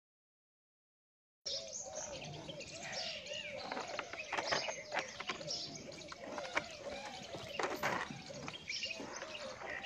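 Milk squirting into a small vessel as a water buffalo is milked by hand, in short hissing spurts, strongest around the middle. Birds chirp steadily throughout. The sound starts only after about a second and a half of silence.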